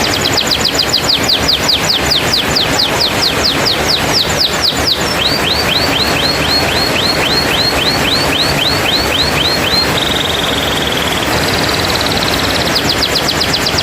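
Canary song: fast trills of quickly repeated down-sweeping whistled notes, dropping to a lower, slower trill about five seconds in, then a buzzing roll on one pitch around ten seconds in that steps up higher, and quick sweeping notes again near the end, over a steady background hiss.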